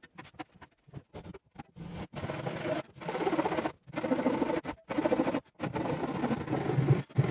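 Hand saw cutting through the wood of an old chest, with short, light strokes at first and then longer, steady back-and-forth strokes about once a second.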